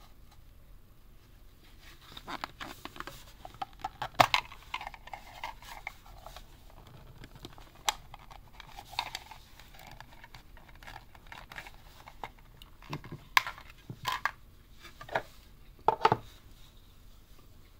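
Hard plastic display case handled with cotton-gloved hands: scattered clicks, knocks and scrapes as the clear acrylic cover is worked off its black base and set down, with the sharpest knocks near the end.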